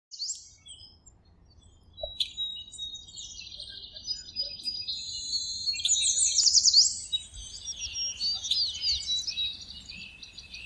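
Several songbirds chirping and trilling together, with quick sweeping whistled notes. Sparse at first, the chorus grows busy about two seconds in and is loudest just past the middle.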